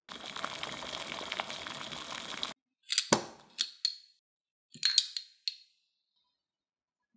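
A steady hissing noise that cuts off suddenly after about two and a half seconds, then small glass jars clinking against metal tongs as they are set down on a cloth, in two rounds of sharp ringing clinks.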